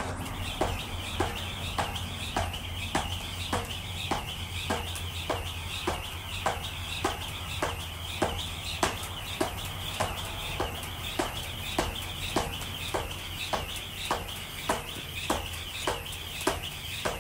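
Jump rope slapping a concrete floor in an even rhythm, a little under twice a second, over a steady high twittering of birds.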